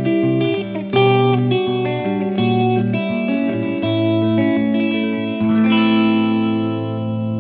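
Background music: a guitar track with effects, its notes changing every half second or so.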